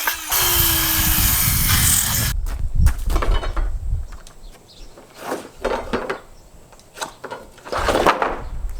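A power saw cutting through a wooden joist. The cut stops suddenly about two seconds in, followed by scattered scraping and knocking as the lumber is handled.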